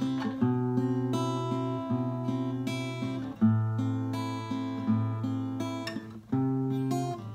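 Acoustic guitar playing a song's intro alone: strummed and picked chords ringing on, moving to a new chord about every second and a half, with firmer strums about three and a half, five and six and a half seconds in.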